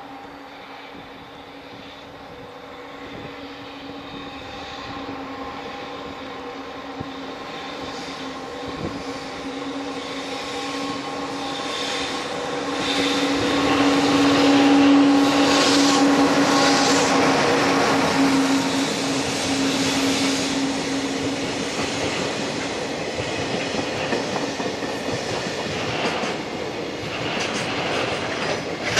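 EH500 electric freight locomotive passing while hauling a container train. Its steady, several-toned hum grows louder as it approaches and peaks about halfway through. The rumble and clickety-clack of the container wagons rolling by follows.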